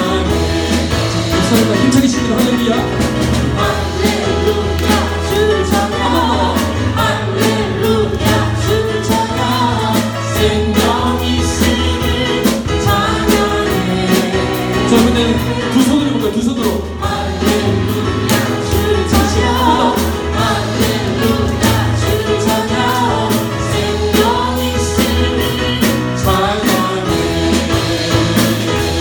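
Live gospel praise song: singing over instrumental accompaniment with a steady beat.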